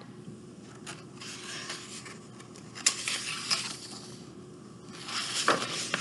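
Pages of a large paperback picture book being turned and smoothed flat by hand: soft paper rustling and sliding in several short bursts, with a small click about a second in.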